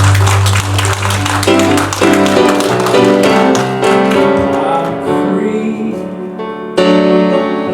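Instrumental introduction of a southern gospel song on piano and keyboard. A deep bass note is held for the first two seconds, then sustained chords change about once a second.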